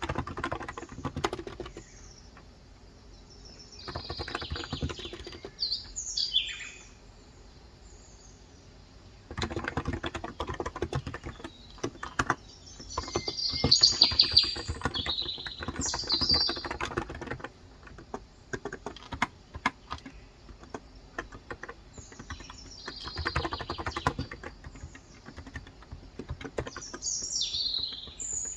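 Bursts of fast typing on a Cox Endeavour 35g electrocapacitive tenkeyless keyboard, each stretch a few seconds long with short pauses between. Birds chirp and sing over it, loudest around the middle.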